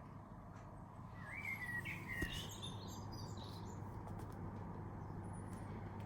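A small bird gives a quick run of chirps about a second in, over steady low outdoor background noise.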